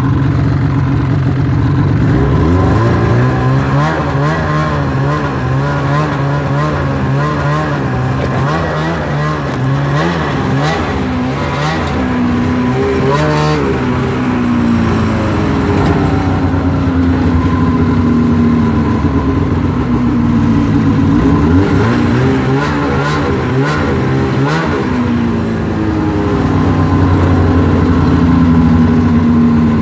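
Snowmobile engines running, revving up and down several times in bursts, with the pitch rising and falling.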